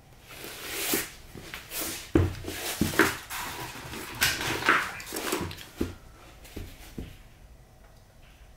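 Small wooden pieces being handled and moved on a wooden board: sliding scrapes with several light wooden knocks.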